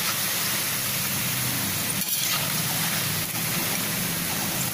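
Gram-flour pakoda strips deep-frying in a kadhai of hot oil over a low flame, a steady sizzle, while a slotted spoon stirs and turns them. A low steady hum runs underneath.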